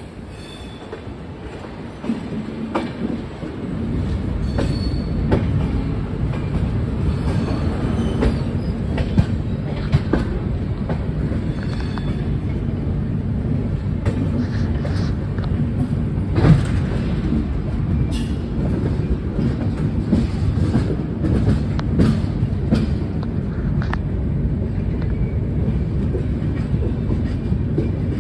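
Passenger train running along the track, heard from on board: a steady rumble of the wheels on the rails with scattered clicks and knocks over the track. It grows louder over the first few seconds, then holds steady.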